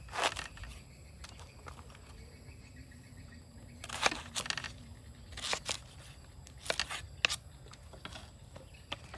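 Kitchen knife cutting through a peeled banana blossom and knocking on a wooden chopping block: several separate cuts with pauses between them.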